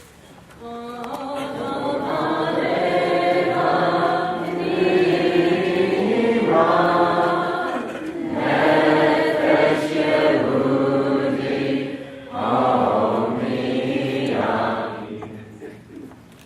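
Choir singing, in sustained phrases with short breaks every few seconds, fading near the end.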